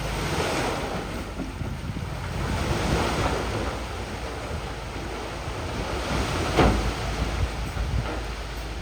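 Heavy earth-moving machinery working loose stone: a steady rushing noise over a low engine rumble, with a sharp knock about six and a half seconds in.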